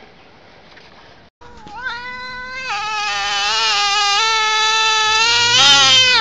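A domestic cat giving one long, loud meow of about four and a half seconds, starting about a second and a half in, its pitch wavering up and down before it breaks off.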